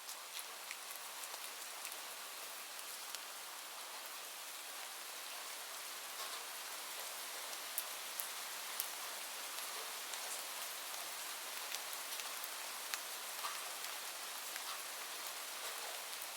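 Steady rain falling, an even hiss with scattered sharper drop impacts. Rises slightly in level over the first few seconds, then holds steady.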